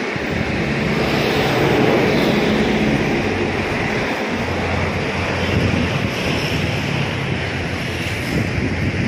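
Steady rushing wind noise on the microphone, with a low steady hum underneath for a few seconds in the middle.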